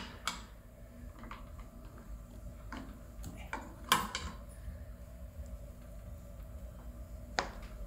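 Long metal tire levers clicking and knocking against an electric scooter's hub-motor rim and against each other as a solid rubber tire is pried onto it: a handful of sharp clicks, the loudest about four seconds in.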